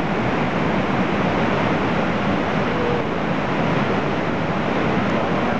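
Steady rushing roar of the Lava Falls rapid's whitewater on the Colorado River.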